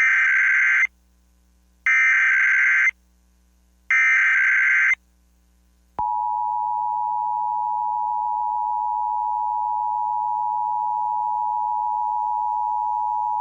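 Emergency Alert System test signal broadcast on FM radio. It opens with three short screeching bursts of SAME digital header data, each just under a second and about two seconds apart, which encode a Required Monthly Test. About six seconds in, the steady two-tone EAS attention signal begins and holds at a constant pitch.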